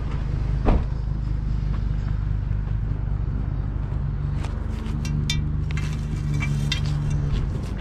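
Pickup truck engine idling steadily, with one sharp knock under a second in and a few light clicks later on.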